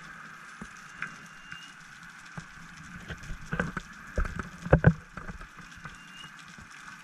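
Underwater sound picked up by a diver's camera on a scuba dive: a steady faint hum with scattered clicks and crackles, and a short cluster of louder knocks and low thumps about four to five seconds in.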